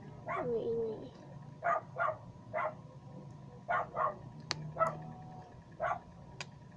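Dog barking repeatedly: about seven short barks at irregular gaps, with a single sharp click about four and a half seconds in.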